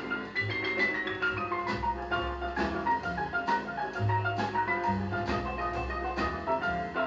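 Jazz record played from vinyl through a 2A3 single-ended tube amplifier and JBL 4312D monitor speakers: quick runs of single melodic notes, including a descending run near the start, over walking bass notes.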